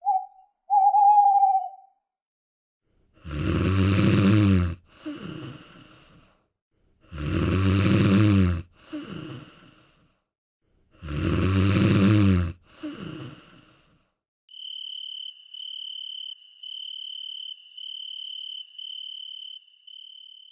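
An owl hoots twice, then a person snores three times, about four seconds apart, each a loud in-breath followed by a softer out-breath. From about two-thirds of the way in, a high electronic beep repeats roughly once a second.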